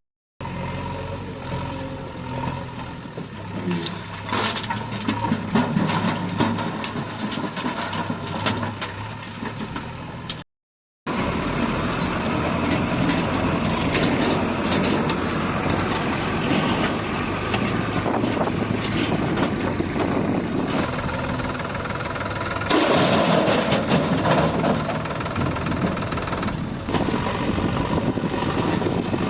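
Diesel engine of a JCB 3DX backhoe loader running and working under load while loading stone, with small clattering clicks over the engine. The sound cuts out briefly twice, at the start and about ten seconds in.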